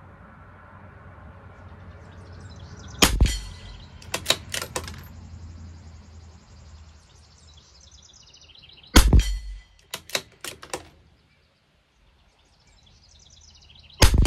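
Three .22 LR rimfire rifle shots from a CZ 457 LRP bolt-action rifle, about five to six seconds apart. Each shot is followed within about a second by a quick run of metallic clicks as the bolt is worked to eject the case and chamber the next round.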